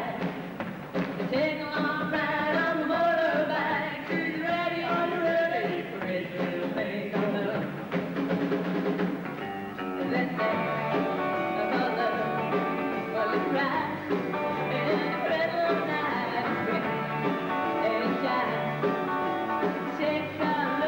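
Live rock band playing: electric guitars, bass guitar and drum kit, with a woman singing lead.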